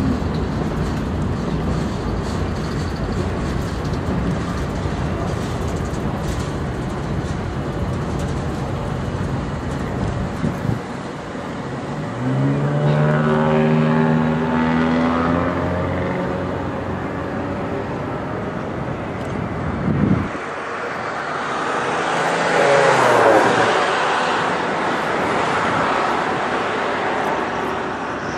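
A diesel train rumbles past, then a locomotive horn blows a steady multi-note chord for a few seconds. Later a second horn blast drops in pitch as the train passes.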